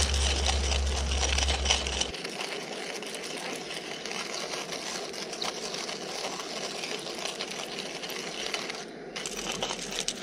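Coffee beans being ground in a coffee grinder: a steady, dense crunching rattle. A low hum runs under it for the first two seconds and stops abruptly.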